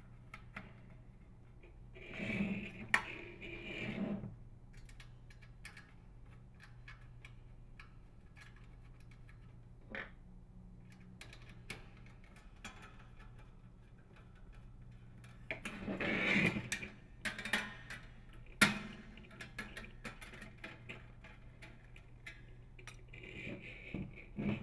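Sheet-metal heater cover and scroll housing of a bath fan being handled and screwed together with a hand nut driver: scattered light metallic clicks and taps, with two bouts of louder scraping and rustling, about two seconds in and again about sixteen seconds in, and a single sharp click a little later.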